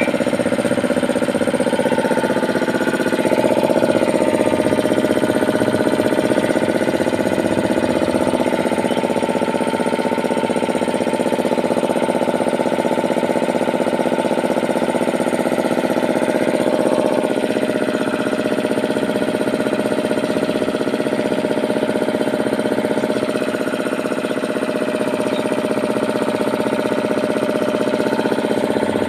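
Power Craft 3 hp air compressor running steadily, its electric motor driving the pump to fill the 120-litre tank.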